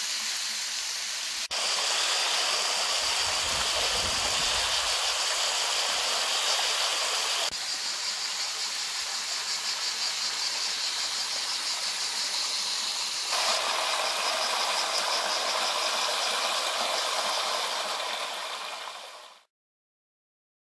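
Stream water running down small cascades over red porphyry rock into natural pools: a steady rushing hiss that changes abruptly three times and fades out near the end.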